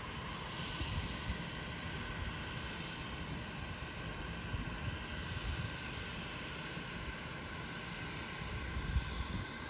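Steady whine of a distant aircraft engine, several high tones held over a haze of noise, with wind rumbling on the microphone.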